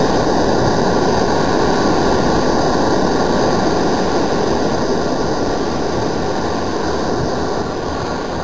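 A loud, steady rushing noise, like a deep rumbling roar, that cuts in abruptly and eases slightly near the end.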